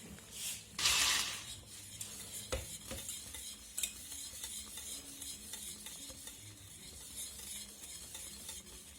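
A spoon stirring strawberry cream in a pot on the cooker, with a noisy scrape about a second in and a few light knocks of the spoon against the pot.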